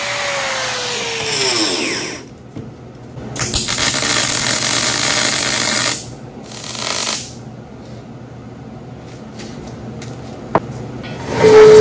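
An angle grinder spinning down, its whine falling in pitch. Then a wire-feed welder's arc crackles for a couple of seconds, followed by a second shorter burst. A single sharp tap comes near the end.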